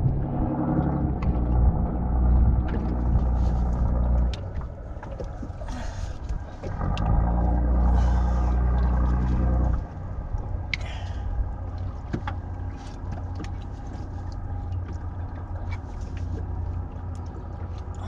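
Low rumble with an engine-like hum, loud in two stretches that cut off abruptly about four and ten seconds in, then quieter. Scattered small clicks and scrapes run throughout, from a putty knife working epoxy putty into a ferro-cement hull.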